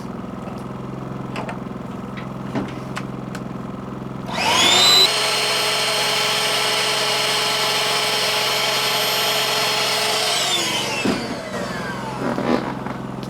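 Electric air-mattress inflator switched on about four seconds in: its whine rises quickly as the motor spins up, runs steadily for about six seconds, then falls in pitch as it winds down. A portable generator hums steadily underneath it, briefly labouring under the load as the inflator starts.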